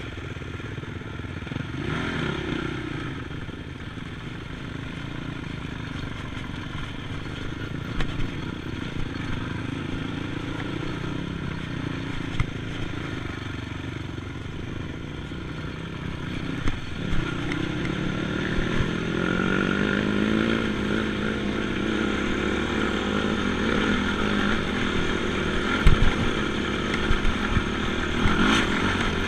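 ATV engine running on a trail, its pitch climbing a little past the middle as it speeds up and then holding. Scattered knocks and rattles come from the machine jolting over rough ground.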